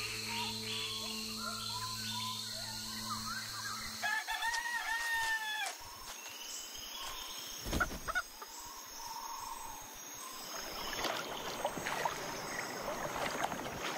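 A rooster crows once, a long arched call, about four seconds in. Near the end, water splashes as a canoe paddle dips and pulls.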